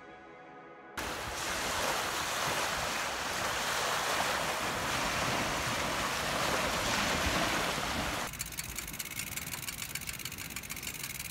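Wind buffeting the microphone of a camera on a moving bicycle. About eight seconds in it drops sharply to a quieter rush with a fast, even ticking.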